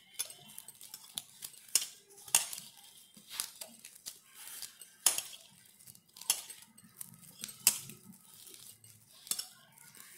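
Hand kneading a wheat-flour and jaggery batter in a stainless steel bowl: irregular sharp clinks and knocks of hand and bangles against the steel bowl, a dozen or so.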